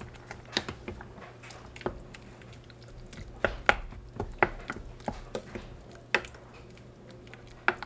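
Wooden spoon stirring and mashing chunky tomatoes in a stainless steel saucepan, knocking irregularly against the side and bottom of the pan about a dozen times.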